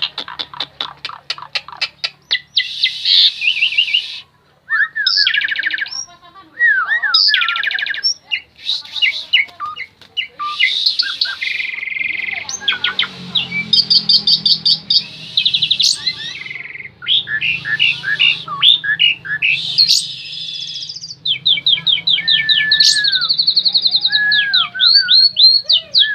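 Pied starling (jalak suren) singing a long, energetic song, with runs of rapid chattering trills and ticks mixed with whistled notes that slide up and down, broken by brief pauses.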